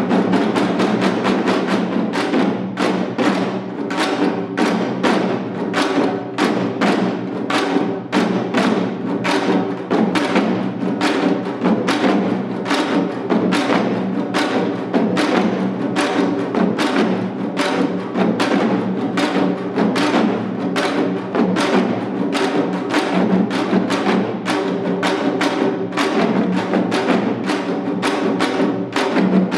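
Korean janggu hourglass drums played in seated seoljanggu style: fast, unbroken runs of sharp stick strokes over the drums' ringing tone.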